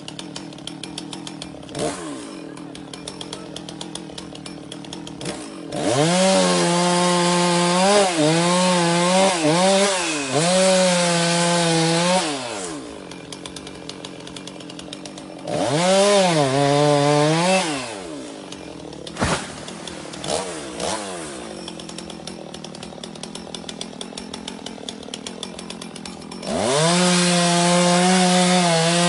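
Two-stroke chainsaw ticking over at idle, then opened up to full throttle three times for several seconds each to cut through a coconut palm trunk. The engine pitch dips and recovers as the chain bites.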